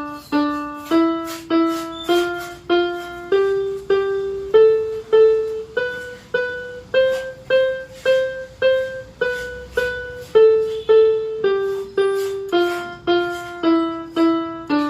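Keyboard with a piano voice played one note at a time in a beginner's lesson exercise. It climbs step by step up about an octave and back down, each note struck twice at an even, steady pace.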